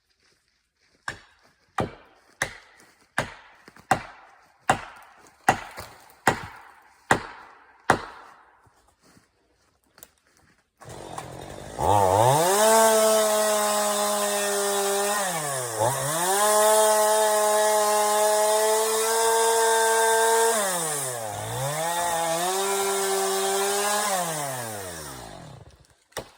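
About ten sharp knocks at a steady pace, roughly one every 0.8 s, then a chainsaw starts and revs up, running at high revs, easing off and revving back up twice before it stops near the end.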